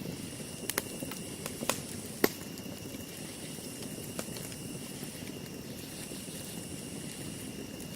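Campfire wood burning with a steady hiss and a few sharp crackling pops, the loudest about two seconds in.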